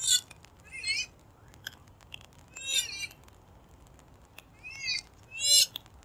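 Purple swamphen calling: a run of short, high calls, five or six in all, each bending in pitch, the loudest near the end.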